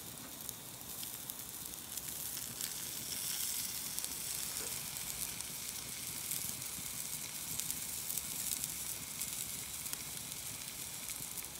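Tomahawk steak sizzling steadily on the steel bars of a wood-fired asado grill over hot embers, with small crackles from the burning wood.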